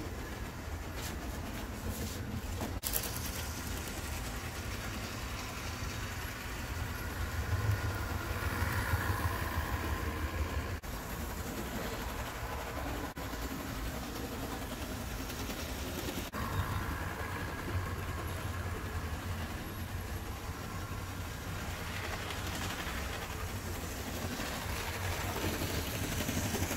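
HO scale model trains running on layout track: a steady motor hum and wheel rumble that swells louder twice as trains pass close.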